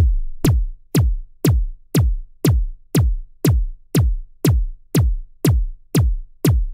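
Background electronic music: only a drum-machine kick drum, beating steadily about twice a second, each beat a sharp hit that drops into a deep low thud.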